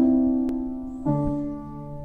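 Upright piano playing the introduction to a song: a chord struck at the start and another about a second later, each ringing and fading.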